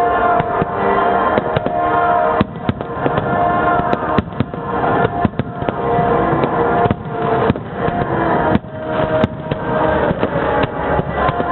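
Fireworks shells bursting in rapid, irregular succession, many bangs a second, over loud music with sustained notes.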